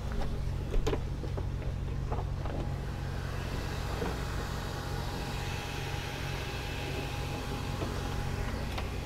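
Steady low machinery hum. A few clicks and knocks in the first couple of seconds as the engine-room hatch in the cockpit floor is unlatched and lifted. After that, a brighter hiss and a faint steady whine join the hum from the open engine room.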